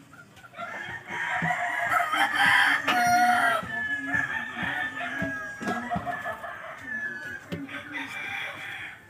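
Rooster crowing, with long drawn-out calls and clucking, starting about half a second in and dying away near the end.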